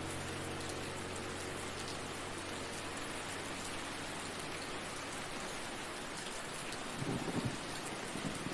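Steady rain falling, with a low rumble of thunder starting near the end.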